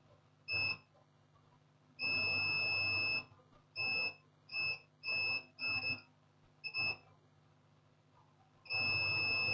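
Digital multimeter's continuity buzzer beeping as the probes touch tracks on an ECU circuit board: eight high steady beeps at irregular intervals, some short and two lasting over a second. Each beep signals that the probed points are electrically connected.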